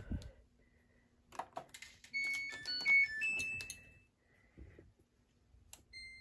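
Front-loading washing machine powering on: a couple of soft clicks from its control panel, then its start-up chime, a quick run of short electronic notes at different pitches. A single short beep near the end as its cycle dial is turned.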